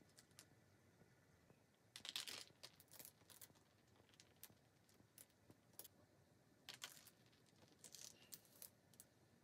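Faint handling noise: a few short bursts of crinkling and light clicks from the plastic drop sheet and the plastic perforated skimmer as paint is splattered, heard about two seconds in, near three seconds, and twice in the last few seconds, against near silence.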